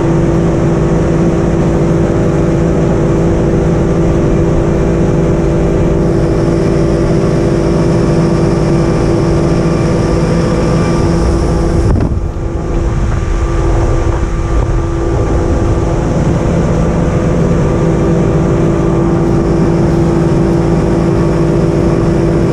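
Mercury 225 hp V8 four-stroke outboard running at steady cruising speed, with water rushing off the hull and wake. The sound dips and changes briefly about twelve seconds in.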